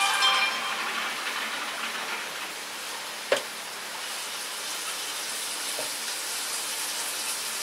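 Shredded chicken being mixed by hand with chili paste in a pot: soft wet squishing over a steady hiss. There are a few light clinks at the start, a sharp knock about three seconds in and a fainter one near six seconds.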